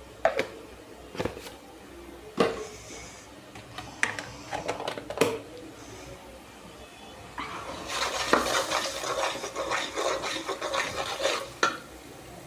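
Metal spoon knocking and scraping against a metal cooking pot: five separate clinks, then about four seconds of rapid scraping and clattering as the masala is stirred, ending in a sharper knock.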